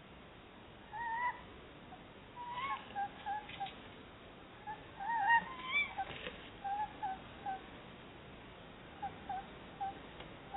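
Tawny owls chattering to each other: short, soft, pitched notes in quick runs of three or four, mixed with a few longer rising-and-falling calls, the loudest about five seconds in. A few faint knocks come in between.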